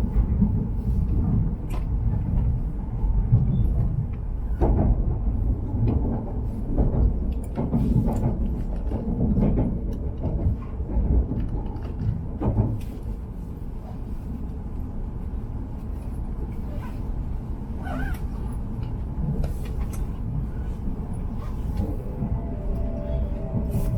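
Low, steady rumble of a train on the move, with scattered short knocks.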